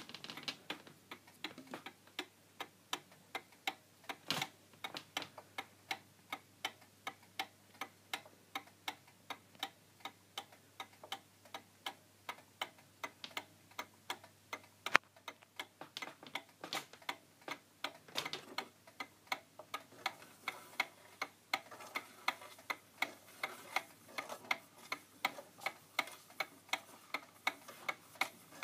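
Pendulum movement of an 1800s mantel alarm clock ticking steadily and evenly as it runs and keeps time, with one sharper click about halfway through.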